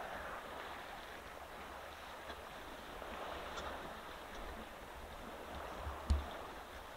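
Water splashing and sloshing as a herd of African elephants wallows and rolls in a dam, over a low wind rumble on the microphone. A single thump about six seconds in.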